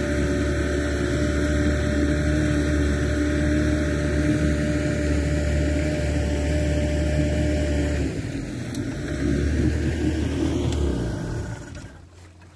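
Small boat's outboard motor running steadily, its tone shifting about eight seconds in; near the end the motor noise drops off sharply as the engine is throttled back or stopped.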